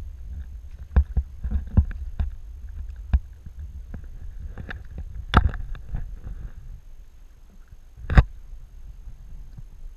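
Kayak paddling heard close on the boat: irregular knocks and splashes from the paddle and hull over a low rumble, with two sharper, louder knocks about five and eight seconds in.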